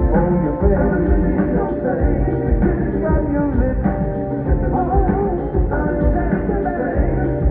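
Live rock band playing an instrumental passage on piano, drums and electric guitar, with a sung or guitar line wavering over the top about five seconds in.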